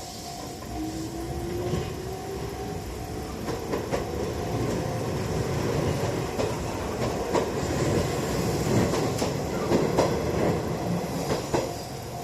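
Izuhakone Railway electric train passing over a level crossing, its wheels clacking over the rail joints, with a slowly rising motor whine in the first few seconds. The crossing's warning bell rings at the start and is then drowned out by the train.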